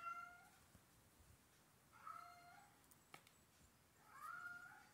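Tabby cat meowing faintly: three short meows about two seconds apart, with a faint click between the second and third.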